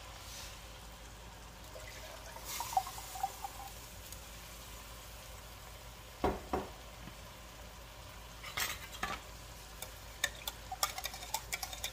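Ground beef and tomatoes sizzling faintly in a stainless steel pot, with a single knock about six seconds in and a run of quick clicks and taps near the end as a tin can is rinsed out with water into the pot.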